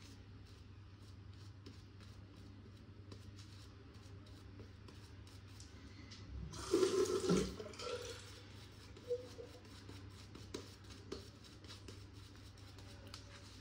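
Double-edge safety razor with a Lord blade, a King C. Gillette, scraping through lathered stubble in short strokes. About halfway through comes a brief rush of running water lasting about a second and a half, as when the razor is rinsed under the tap.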